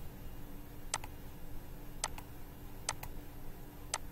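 Computer mouse clicking: about six short, sharp clicks at uneven intervals, roughly one a second, some in quick pairs, over a low steady hum.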